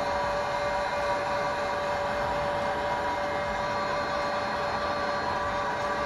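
Electric heat gun running steadily, its fan giving a steady whine over a rushing hiss of air, as it shrinks heat-shrink tubing over a soldered wire splice.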